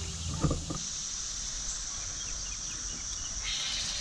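Summer outdoor ambience with a steady high-pitched insect drone; a second, lower buzz joins near the end. A low hum stops just under a second in, and there is one sharp knock about half a second in.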